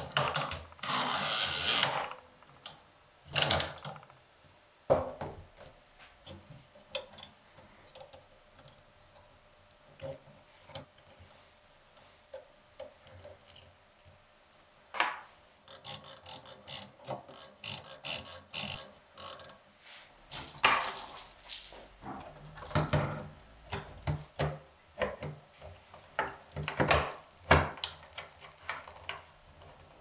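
Hand-worked mechanisms of a 1930s Remington-built Remie Scout portable typewriter: the carriage slides across smoothly at the start, then the ribbon-spool ratchet clicks rapidly for several seconds around the middle. Scattered clicks and knocks of metal parts being handled come in between and after.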